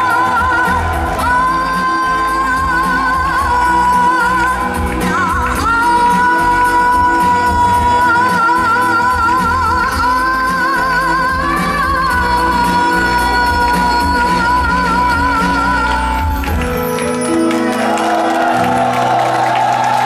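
A woman singing a song live into a microphone over backing music, holding long notes with vibrato in a large hall. The beat stops near the end, and the audience starts cheering as her last note carries on.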